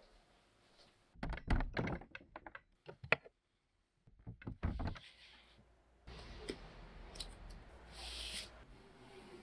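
Quiet handling sounds: a run of soft thuds and clicks, a stretch of dead silence, then vinyl record sleeves being flipped through, with a short sliding rustle as one is drawn near the end.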